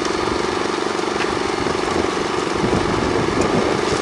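Steady engine-like drone with a buzzing hum from radio-controlled construction machines at work; about two and a half seconds in the pitch wobbles up and down for about a second.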